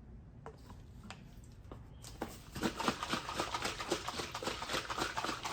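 Rapid clicking and rattling of small hard objects. There are a few separate clicks at first, and it grows into a dense, fast clatter about two seconds in.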